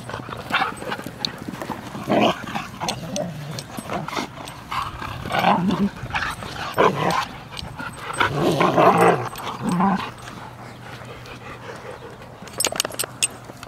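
Two dogs play-fighting, growling in rough bursts as they wrestle. The noise dies down after about ten seconds, and a few quick clicks follow near the end.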